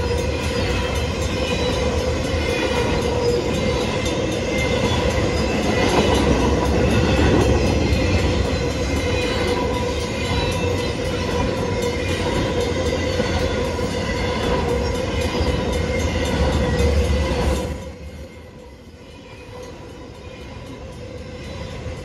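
BNSF intermodal freight train rolling through a grade crossing: steady rumble and clatter of the cars on the rails, with the crossing signal bells ringing. A little past three-quarters of the way in, the train noise drops off sharply, leaving the bells fainter above a lower rumble.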